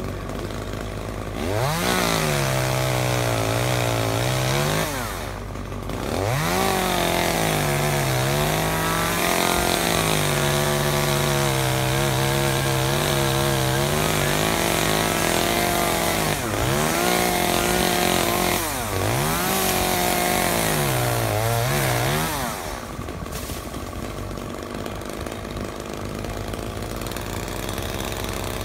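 Chainsaw cutting oak branches up in the tree: it revs high, sags in pitch as the chain bites into the wood and climbs again, over several cuts. Before and after the cutting it runs quieter at idle.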